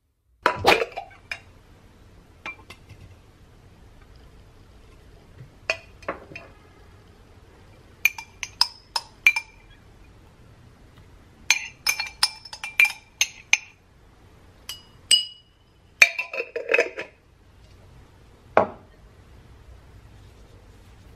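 Drinking glasses clinking as they are handled and tapped with a spoon: a series of sharp clinks with short ringing, some in quick runs of four or five, a scrape-like rattle about sixteen seconds in.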